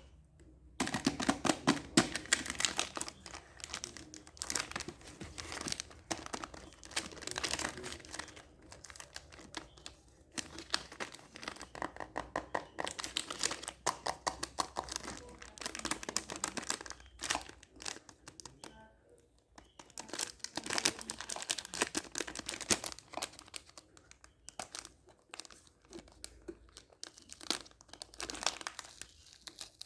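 Plastic packaging crinkling and rustling in irregular crackles as items are handled and unwrapped, with a short pause about two-thirds of the way through.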